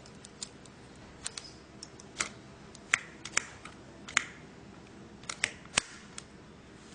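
Irregular sharp metallic clicks and snaps as a scale-model .50-cal machine gun that fires .22 rounds is loaded: the cartridge belt is seated in the feed tray and the top cover is pressed shut. The loudest snaps come in the middle and near the end.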